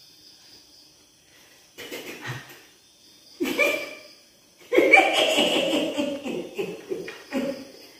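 An old woman's cackling laugh: two short snickers, then a longer cackle from about five seconds in.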